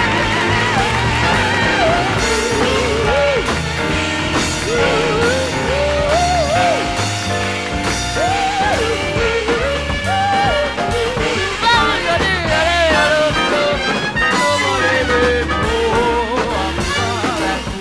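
Background music: a melody line that wavers in pitch over a steady bass line.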